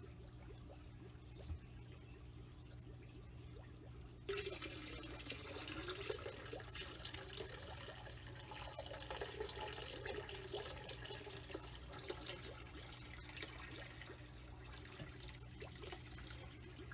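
Water pouring from a plastic container into an aquarium and splashing onto the surface. It starts suddenly about four seconds in and runs steadily, over a low steady hum.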